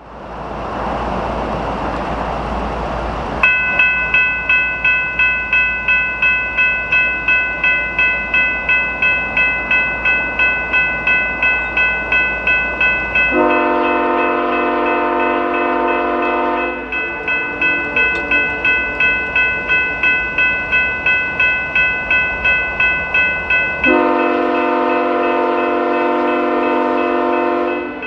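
A railroad grade-crossing bell begins ringing a few seconds in, about two strokes a second, over the rumble of an approaching freight train. The locomotive's horn sounds two long blasts for the crossing, the second near the end.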